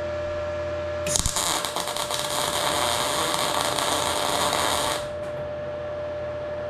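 A power tool runs for about four seconds, starting about a second in and cutting off sharply, over a steady electrical hum.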